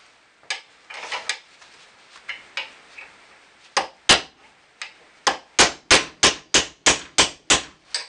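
Hammer striking the old hinge pin, used as a drift, to drive a new pin down through a 1967 Mustang's cast steel lower door hinge held in a vise. A few scattered strikes come first, then a rapid, even run of about eight sharp blows, roughly three a second, over the last few seconds.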